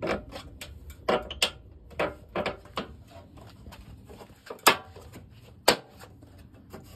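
White plastic front panel pieces of a General Electric dryer knocking and clicking as they are handled and pressed into their seat: a dozen or so irregular sharp knocks, the two loudest about a second apart in the second half.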